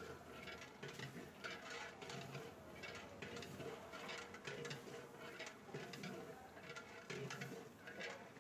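Long metal ladle stirring curry in a large aluminium pot, clinking and scraping against the pot's sides in repeated irregular strokes, a few a second.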